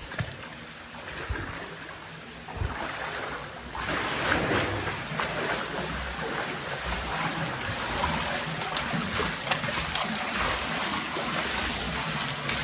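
Water in a slot-canyon creek rushing and splashing, quiet at first and then louder and steady from about four seconds in.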